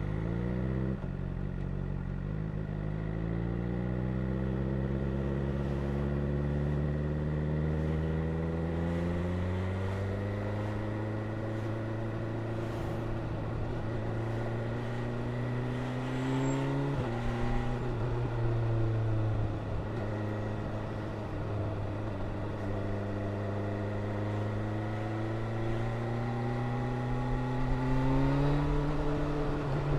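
BMW S1000R's inline-four engine pulling under steady acceleration, its pitch climbing slowly for about sixteen seconds. At about the midpoint it drops suddenly at an upshift, then climbs again toward the end.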